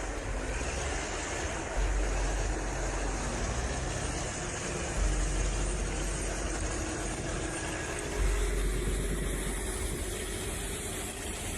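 The engine of the 120-horsepower TT4 vehicle running, with a low rumble that swells up several times.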